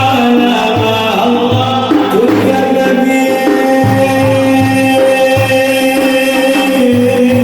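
Middle Eastern devotional music: a steady hand-drum beat under a long-held melody.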